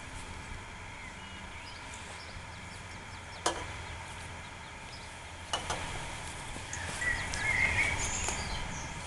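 Outdoor ambience: a steady low rumble of wind on the microphone, two sharp clicks about three and a half and five and a half seconds in, and brief bird chirps near the end.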